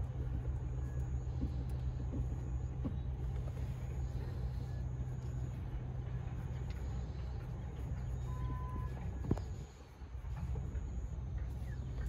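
A car engine idling with a steady low hum, with a few faint clicks and taps as the gear knob is screwed onto the shift lever. There is one sharper click about nine seconds in, after which the hum briefly drops away.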